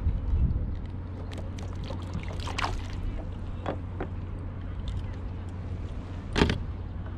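Small water splashes and handling knocks around a plastic kayak over a steady low rumble, with the loudest splash or knock about six seconds in.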